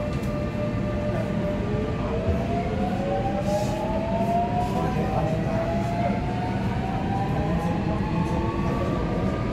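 Incheon Subway Line 1 train heard from inside the car: a steady rumble of wheels on rail, and from about two seconds in, a motor whine that rises in pitch in several stepped glides as the train gathers speed.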